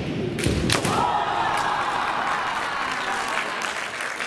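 Kendo strike: two sharp impacts close together, a bamboo shinai hitting armour and a stamping foot, then a long drawn-out kiai shout that slowly falls in pitch and fades over about two and a half seconds.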